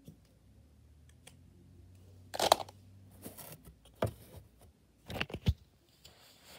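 Handling noise as a paper drawing on a clipboard and the camera are moved about: a series of short knocks and rustles, the loudest about two and a half seconds in and two more close together around five seconds in.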